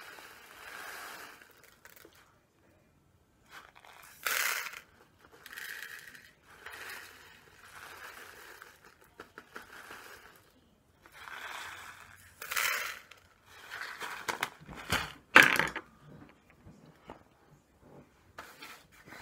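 Foil-lined Knorr Spanish Rice pouch crinkling as the dry rice-and-pasta mix is shaken out of it into a measuring cup. It comes as a series of short shakes about a second apart, with a few louder, sharper crinkles of the packet.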